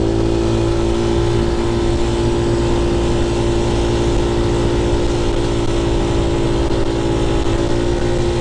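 Scooter's rebuilt, just-broken-in engine pulling at a steady cruising speed, a constant drone holding one pitch. Wind rushes over the helmet microphone.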